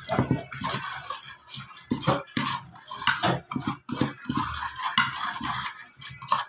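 Metal fork clinking and scraping against a ceramic plate in quick, irregular strokes while mixing noodles.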